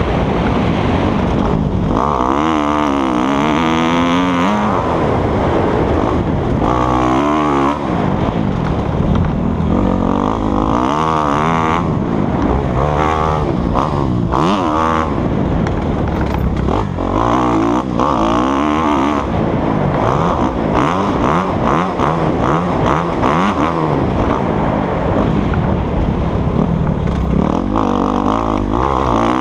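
Dirt bike engine being ridden hard, revving up and down over and over as the throttle opens and closes, its pitch climbing and dropping every second or two.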